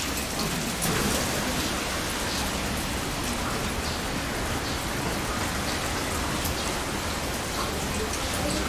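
Heavy rain falling steadily, with many separate drops heard as small ticks.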